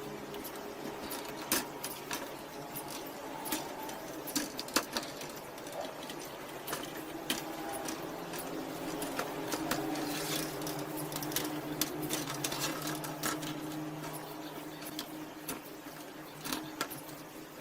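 A small motor running steadily, with scattered clicks and taps.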